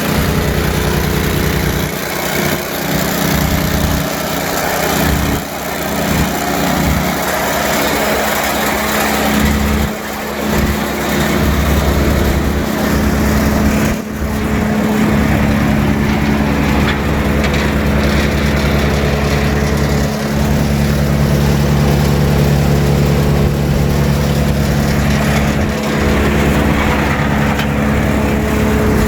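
Brush Bandit 65XP wood chipper's 25-horsepower Kohler engine running steadily at a constant speed.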